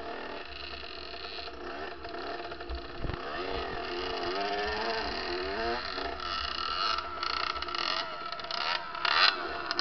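Kawasaki KX65 single-cylinder two-stroke dirt bike engine revving up and down repeatedly as it rides through mud. Sharper, louder noise comes in over the last few seconds, as another bike is caught up with in the mud.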